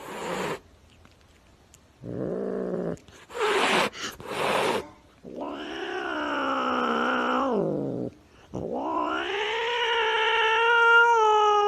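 A cat yowling: a short call and a few brief hissing bursts, then two long drawn-out yowls, the second growing louder toward the end.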